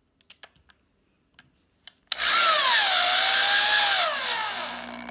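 Electric drill with a Phillips driver bit driving a wood screw into a countersunk hole in particleboard, after a few light clicks as the screw is set on the bit. The motor starts about two seconds in and its whine falls in pitch as the screw bites and seats flush, running for about three seconds.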